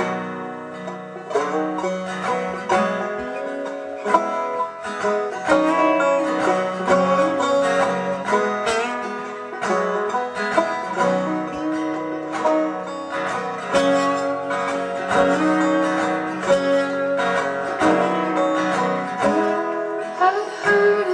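Acoustic folk trio playing an instrumental passage on plucked string instruments, with steady picked notes and no vocals.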